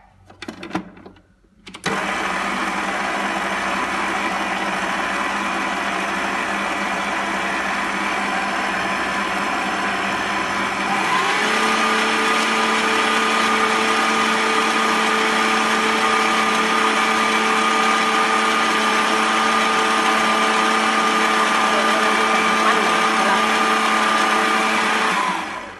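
Electric stand mixer running, its flat beater working chocolate-chip cookie dough in a stainless steel bowl: a steady motor whine that starts about two seconds in, steps up to a higher speed about halfway through, and stops just before the end.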